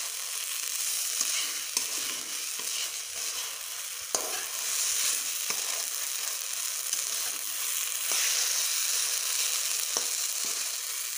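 Potato, aubergine and tomato bharta sizzling in oil in a metal pan as it is stirred and pressed with a flat spatula, with a few sharp clicks of the spatula against the pan.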